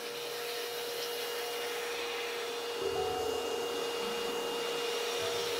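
Vacuum cleaner running steadily with a constant whine, its crevice nozzle sucking toner residue out of a copier imaging unit's frame.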